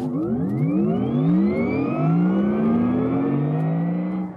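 A car accelerating, its engine note rising steadily and then levelling off, cut off sharply near the end.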